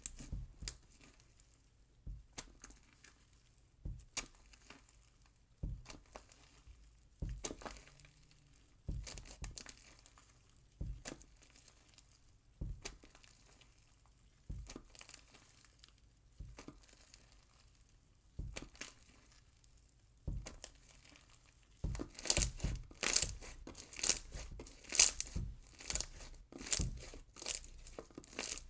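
Clear slushy slime full of beads being squished and worked by hand. It makes separate squishes about every one and a half to two seconds, then faster, louder ones in the last quarter.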